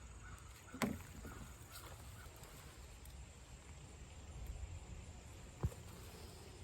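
Digging through soil in a sweet potato bed: low scraping and rustling of earth, with a sharp knock about a second in and another near the end.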